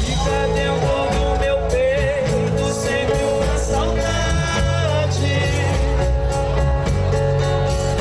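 Live band music: a woman singing a melody over guitar and bass.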